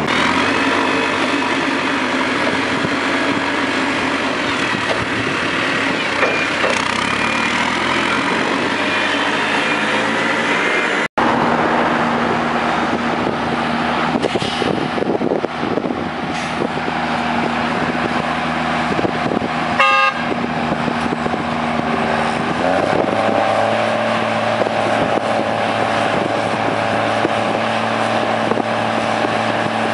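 New Holland tractor diesel engines on open straight-pipe exhausts, running under load with a steady drone. The sound drops out for an instant a little over a third through. About three quarters through, the engine note steps up in pitch as it revs higher.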